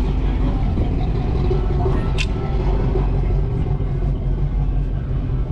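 Wind buffeting the microphone, a steady loud low rumble, with one brief sharp click about two seconds in.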